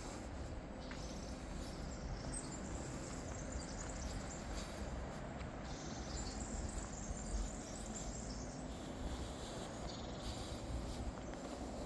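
Birds chirping, with scattered high chirps over a steady low rumble.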